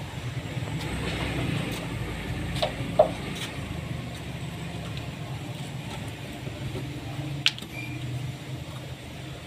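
A few sharp metallic clicks as a small fitting at the base of an air compressor pump's crankcase is worked loose by hand, over a steady low hum.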